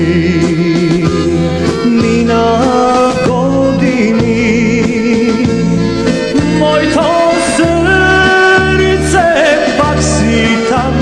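Macedonian folk-style song: a singing voice and ornamented, wavering melody lines over a steady pulsing bass beat.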